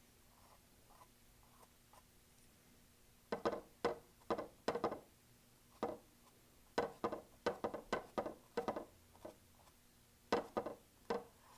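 Paintbrush dabbing and tapping on a stretched canvas: a string of short, irregular taps, two or three a second, starting about three seconds in.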